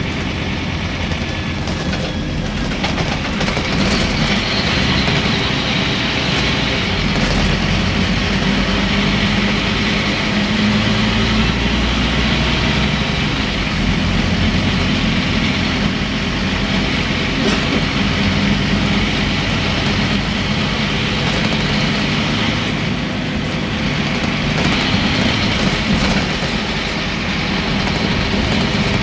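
Scania N230UB single-decker bus heard from inside the passenger cabin while under way: its rear-mounted diesel engine and road noise, with interior rattles. The engine note rises and falls with the bus's speed.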